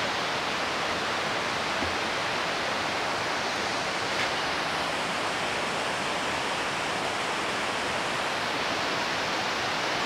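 Steady rush of Pecker Falls and the river rapids below it, running high after heavy rainfall.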